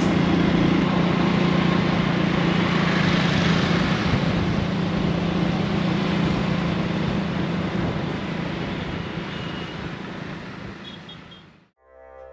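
Busy city road traffic: a steady wash of vehicle engines and tyres that fades out about eleven seconds in.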